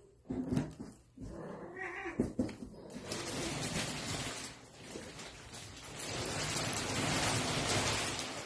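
Russian Blue kittens giving a few short mews, followed from about three seconds in by several seconds of loud rustling noise.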